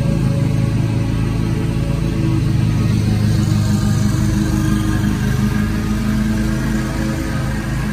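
Ferris Z1 36-inch stand-on mower's engine running steadily under mowing load, getting a little quieter toward the end as the mower moves away.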